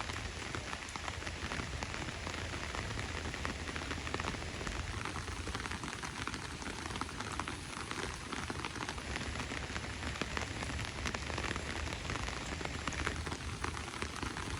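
Steady rain falling and pattering on surfaces, with many separate drop hits.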